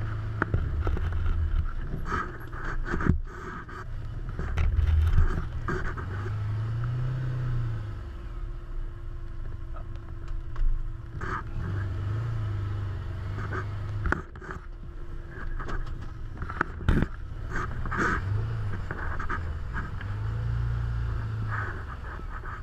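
Can-Am Commander side-by-side's engine running at low speed, heard from inside the open cab, the low rumble swelling and easing several times as it creeps up to the pump. Scattered sharp knocks and rattles from the cab.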